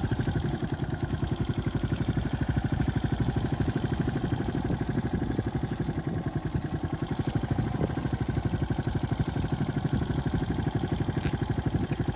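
A farm vehicle's engine running steadily at low revs close by, with a fast, even firing pulse.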